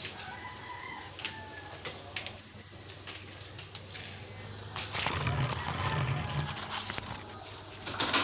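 A faint drawn-out animal call in the first couple of seconds. Then rustling and low bumps as the phone is picked up and handled, loudest about five to six and a half seconds in.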